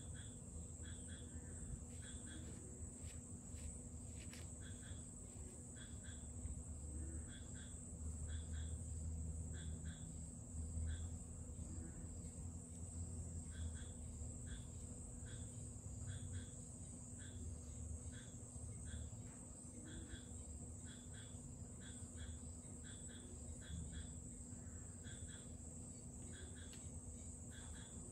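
Faint insect chirping: short chirps repeating every second or so over a steady high hiss, with a low background rumble.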